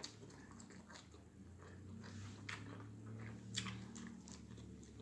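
Close-miked mouth chewing a mouthful of burger: faint, wet clicks and crackles, a few sharper ones in the middle, over a low steady hum.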